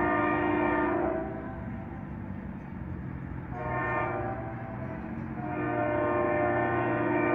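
Air horn of a Union Pacific GE C44AC diesel locomotive sounding the end of the grade-crossing signal: a long blast ending about a second in, a short blast near the middle, then a long blast from about five seconds in.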